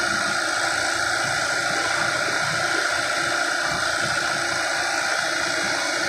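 Fiat-Hitachi 150 excavator's diesel engine running steadily, an even mechanical drone with a constant high whine.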